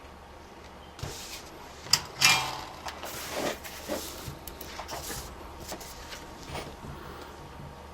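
Small workbench handling noises: scattered clicks, taps and light knocks of tools and parts while a wire is soldered to a laptop power jack. The loudest is a sharp click about two seconds in, followed at once by a short scrape.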